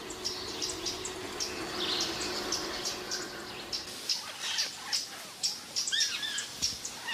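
Forest wildlife ambience: a short high chirp repeating evenly about three times a second, with a few brief whistled bird calls about six seconds in. A faint low steady hum sits underneath for the first half.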